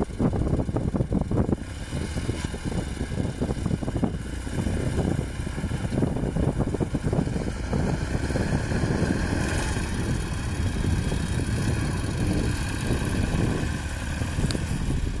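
Engine of a homemade ATV on giant low-pressure tyres, running steadily as it drives across snow.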